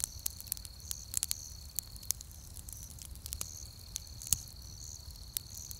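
Crickets chirring steadily, a continuous high trill with pulsing chirps above it, broken by scattered sharp clicks.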